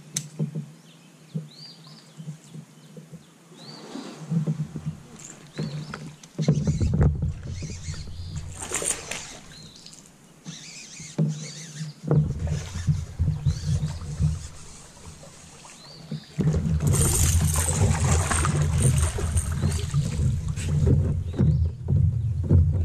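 Handling noise in a fishing kayak: low rumbling knocks and scrapes against the hull, turning into a loud continuous rumble and rustle about two thirds of the way through as a landing net is brought out. A few faint small chirps early on.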